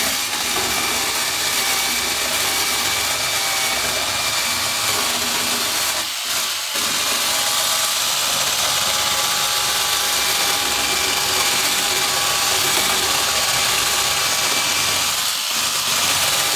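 Electric drill spinning a sanding star wheel against a wooden moulding: a steady motor whine over the hiss of the abrasive rubbing the wood, briefly dipping about six seconds in.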